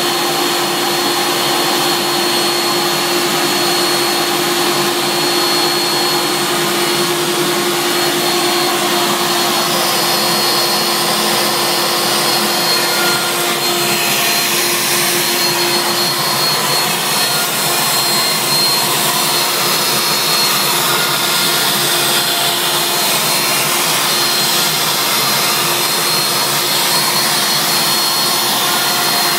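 CNC router spindle running steadily with a high whine while its bit carves a sign into a wooden board.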